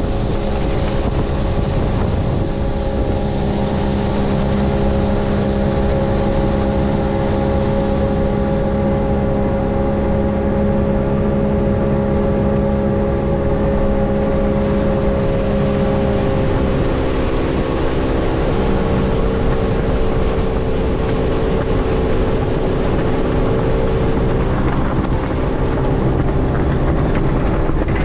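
Outboard motor of a center-console skiff running steadily at speed, a constant drone whose pitch shifts slightly a little past halfway. Wind and rushing water add a steady hiss, with wind on the microphone.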